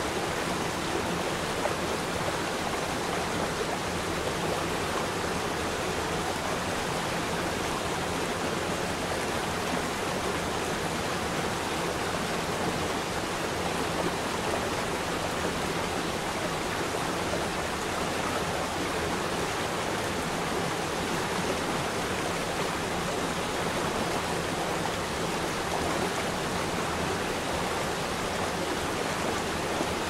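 A waterfall running: a steady, unbroken rush of falling water.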